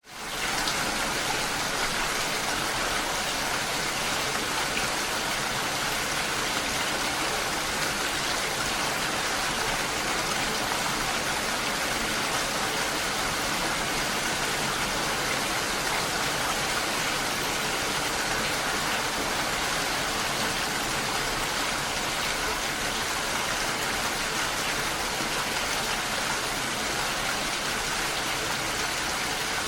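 Steady rain falling on a lake, a dense even hiss that fades in at the very start and then holds constant.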